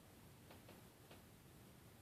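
Cat licking a plastic protective cone, three faint tongue clicks in quick succession starting about half a second in, over near silence.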